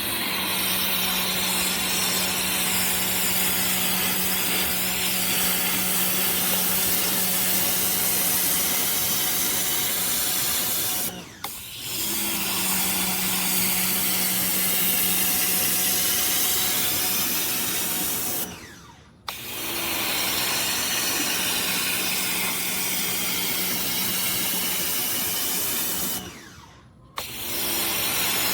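Pressure washer running, its motor-driven pump humming steadily under the loud hiss of the high-pressure water jet. The sound falls away and starts up again three times, as when the spray gun's trigger is released and squeezed again.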